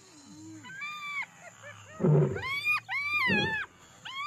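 Wild animal cries: a series of high, whining calls that each rise and then fall. A soft one comes about a second in, then two loud ones follow in the middle, with a low growl under them.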